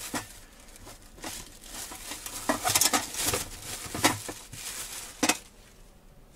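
Plastic bag rustling and crinkling in irregular bursts as hands rummage through it, with a couple of short knocks.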